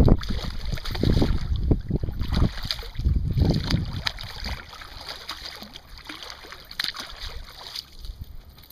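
Shallow river water splashing and lapping at the edge of a grassy bank, with low rumbling buffets on the microphone that are heaviest in the first three seconds and then ease off.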